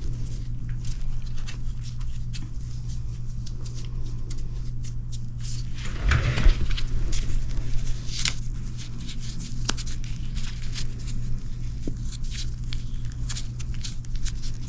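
A steady low hum with scattered light clicks and taps, and a louder rustling knock about six seconds in.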